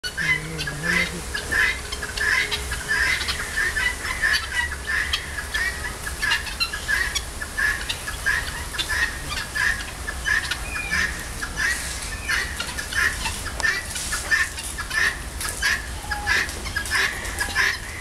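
Helmeted guineafowl calling: a rapid, irregular chatter of short repeated notes, two or three a second, over a low steady rumble.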